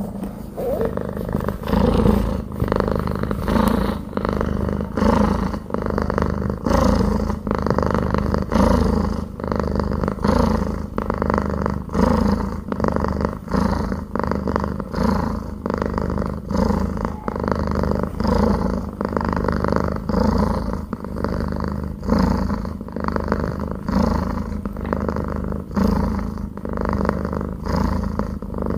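Domestic cat purring steadily, the purr swelling and easing with each breath, about one breath every two seconds.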